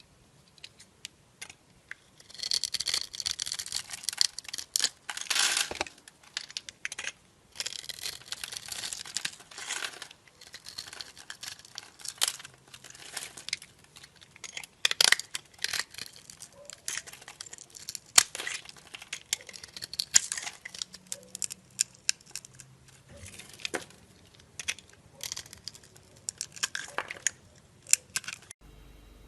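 A knife cutting dry soap: crisp crunching and scraping strokes, two long runs of dense crunching in the first ten seconds, then shorter scrapes and sharp cracks.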